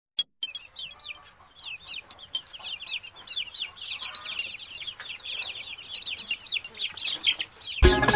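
Many small birds peeping and chirping together, a quick overlapping run of high calls that each fall in pitch. Music cuts in suddenly near the end.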